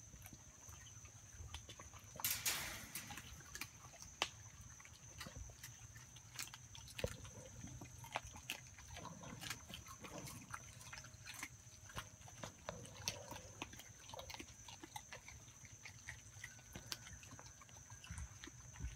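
Goldendoodle puppy chewing a raw chicken leg quarter: irregular wet clicks and crunches of teeth on meat and bone, with a louder rustling burst about two seconds in. A faint steady high-pitched tone runs underneath.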